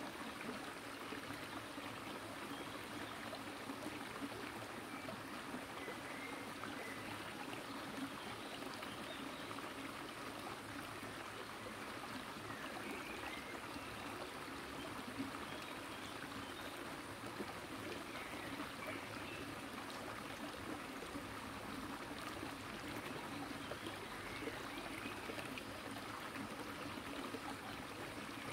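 Steady rushing and trickling of a shallow stony river, heard through a camera submerged in the current.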